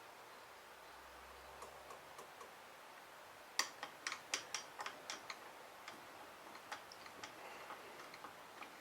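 Faint workshop room tone, then about three and a half seconds in a quick run of sharp clicks and light taps, some eight in under two seconds, followed by a few scattered clicks: tools and parts being handled while a shaft is set up and aligned in a small rotary table.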